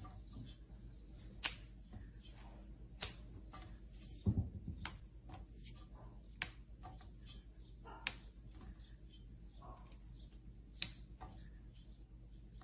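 Crisp snaps of fresh green beans being broken by a capuchin monkey's hands, a sharp one every second or two with fainter ticks between. A dull thump comes about four seconds in.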